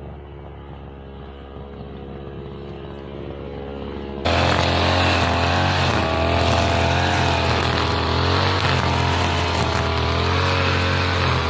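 Petrol brush cutter with a nylon-line head running, its engine speed wavering up and down. About four seconds in it suddenly becomes much louder and fuller.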